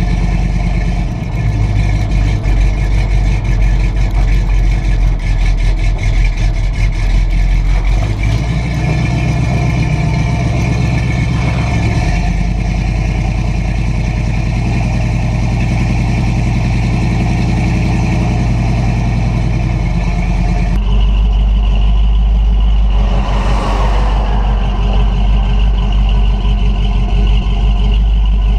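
Exhaust of a stock Ford 460 big-block V8 breathing through Hedman headers and dual 2½-inch pipes with Thrush Welded mufflers, heard from under the truck as it drives, with tyre and road noise. The sound changes abruptly about three-quarters of the way through.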